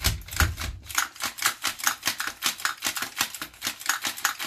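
Rapid metallic clicking, about five clicks a second, from the mechanism of a KWA LM4 PTR gas blowback airsoft rifle being worked by hand: a function check showing the freshly reassembled bolt and charging handle are seated and working.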